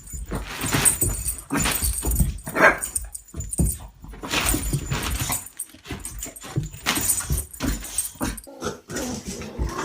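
A dog vocalizing in a string of short, rough bursts, with a brief higher-pitched cry about two and a half seconds in.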